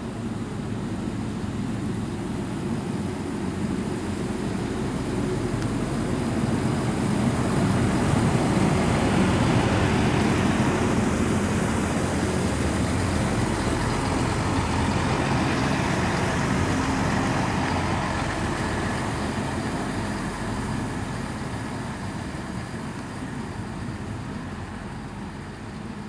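DB Class 642 Siemens Desiro diesel multiple unit passing close by, its underfloor diesel engines running with a steady drone. The sound grows louder as it approaches, is loudest about 8 to 16 seconds in, then fades as it moves away.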